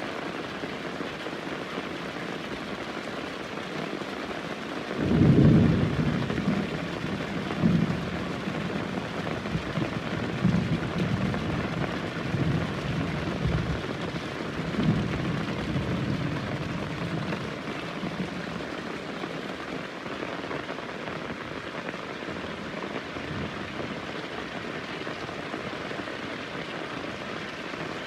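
Steady heavy rain, with a thunderclap breaking out about five seconds in and rolling on in several deep rumbling surges for over ten seconds before dying away under the rain.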